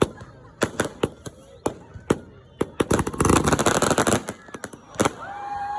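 Fireworks and firecrackers going off: a run of sharp separate bangs, with a dense crackling burst about three seconds in that lasts about a second. A held high tone starts near the end.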